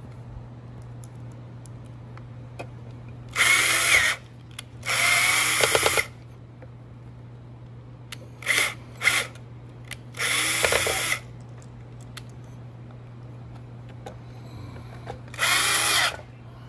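Handheld power drill-driver run in six short bursts, two of them very brief, each spinning up in pitch, as screws are driven into the sheet-metal blower housing.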